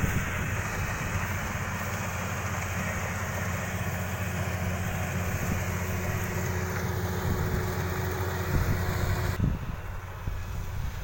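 Kubota DC-35 rice combine harvester's diesel engine running steadily, with a constant low hum under a broad mechanical rush. The higher hiss drops away about nine seconds in.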